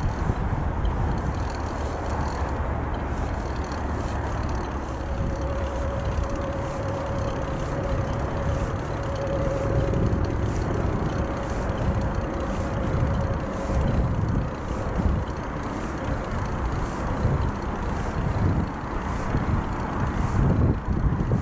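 Wind rumbling across a chest-mounted GoPro's microphone with bicycle tyre and frame noise while riding along a paved trail. A faint steady whine sounds from about five seconds in until about fourteen seconds.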